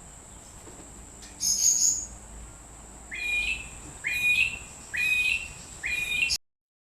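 A bird calling four times, about once a second, each call a short upward sweep. There is a brief higher chirp before it and a steady high-pitched whine underneath.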